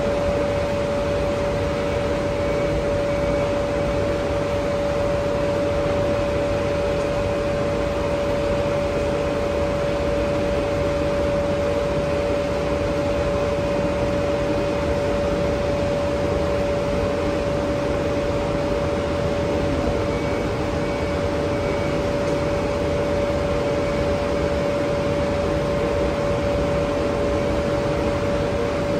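Steady machinery drone with a constant mid-pitched hum that holds the same pitch and level throughout.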